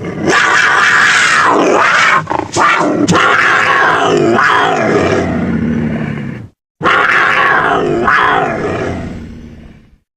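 Invented Dimetrodon creature roar, a sound effect made from a rooster's call and a cartoon puppet creature's voice. One long call of about six and a half seconds with a brief break near two seconds, then after a short pause a second call that fades out.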